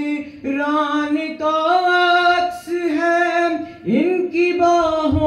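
A man singing an Urdu manqabat unaccompanied. He holds long notes that step up and down, with short breaths between phrases and a rising slide into a new phrase about four seconds in.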